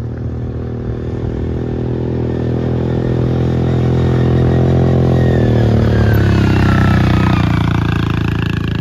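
A motor vehicle's engine running steadily, growing louder and rising a little in pitch over the second half.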